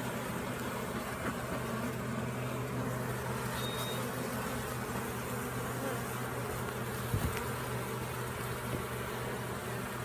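Honey bee swarm buzzing steadily as the last bees are smoked toward a nuc box entrance. A short thump comes about seven seconds in.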